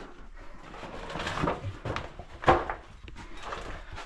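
Scuffing, scraping and rustling of people clambering over rock, with one sharp knock about two and a half seconds in.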